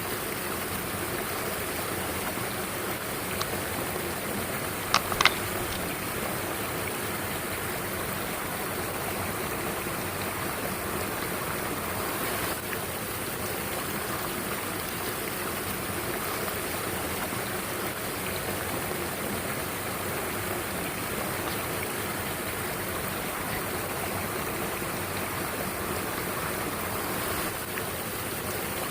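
Mountain stream rushing steadily over rocks, with a couple of short sharp clicks about five seconds in.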